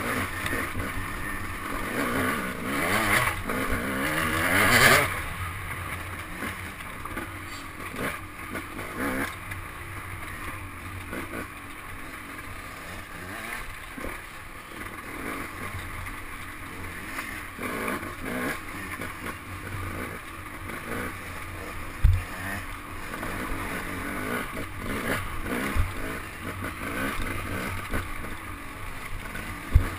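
A dirt bike's engine heard from the rider's helmet camera, revving up hard a few seconds in, then running on and off the throttle over rough ground. A few sharp knocks come from the bike jolting, the loudest in the second half.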